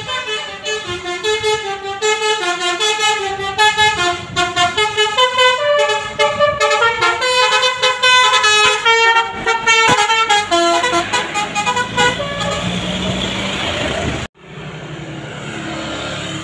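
Bus 'telolet basuri' multi-tone musical air horn playing a fast melody of short stepped notes for about twelve seconds. Then the horn gives way to a rush of engine and road noise as the bus goes by. The sound cuts off abruptly near the end and comes back as a steady rumble.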